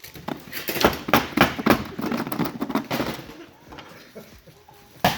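Yu-Gi-Oh booster pack wrappers crinkling and tearing open, a dense run of sharp crackles in the first three seconds that dies down after.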